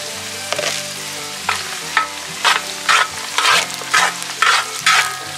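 Sliced garlic and green chillies sizzling in hot sesame oil, with a metal slotted spoon stirring and scraping the pot about twice a second from about a second and a half in.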